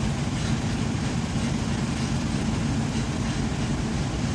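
An engine idling steadily with an even, low, pulsing rumble.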